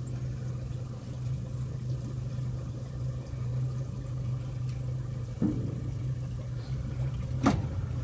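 Tour boat's motor running with a steady low hum, with a soft knock about five seconds in and a sharp click near the end.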